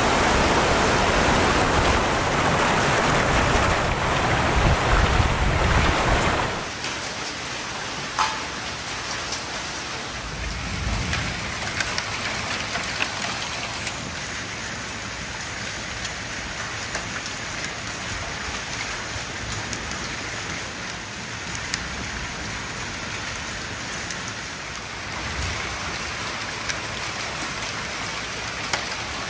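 Heavy rain pouring down in a thunderstorm, loud and rumbling for the first six seconds, then dropping abruptly to a steadier downpour with scattered sharp ticks.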